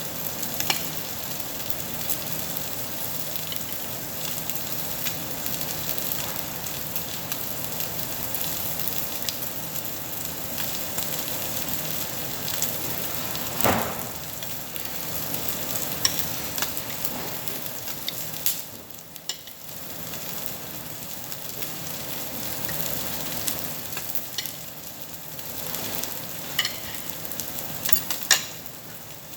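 Meat sizzling on a Korean barbecue tabletop grill: a steady hiss with fine crackles and pops, and a few sharp clicks, the loudest about halfway through.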